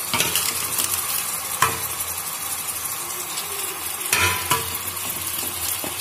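Raw chicken pieces sizzling as they fry in hot oil in a metal pot, with a few knocks of a utensil against the pot about one and a half seconds in and again around four seconds.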